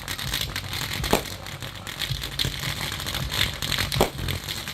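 Fireworks going off: steady crackling with two sharper bangs, about a second in and again near the end.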